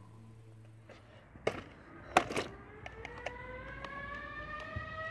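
24 V S0 siren during a test alarm: a few sharp clicks come about a second and a half and two seconds in, then the siren starts again and its tone rises slowly in pitch.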